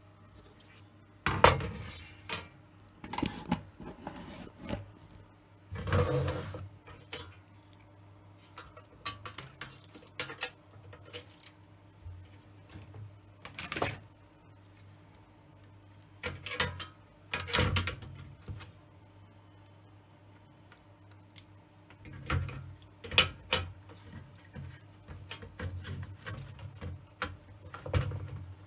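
Scattered clinks, knocks and scrapes as an LCD monitor's circuit boards and cable are handled and set down on its sheet-metal chassis, about a dozen sharp knocks in all, some in quick pairs. A faint steady low hum runs underneath.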